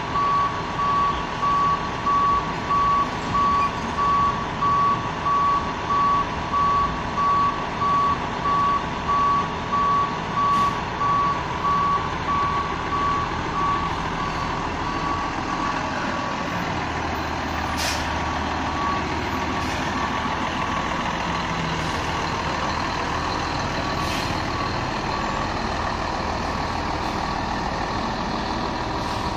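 Garbage truck's reversing alarm beeping about once a second over its running engine. About halfway through the beeping stops and the engine keeps running as the truck moves forward, with a short air-brake hiss a little after that and fainter hisses later.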